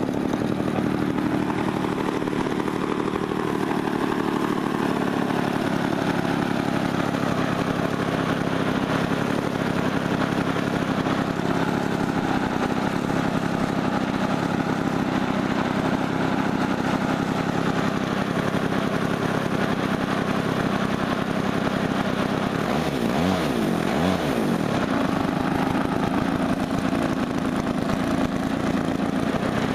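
Engine of an RC aerobatic model airplane (Gary Ward MX2) running steadily at idle while the plane sits on the ground. About three-quarters of the way in, the pitch briefly wavers up and down.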